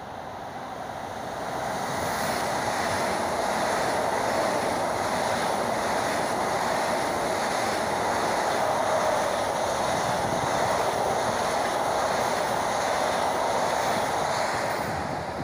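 Two coupled ICE high-speed train sets passing a station platform at speed: a steady rushing of wheels on rail and air that builds over the first two seconds as the train arrives, holds loud while the long train runs by, and falls off near the end as the last car clears.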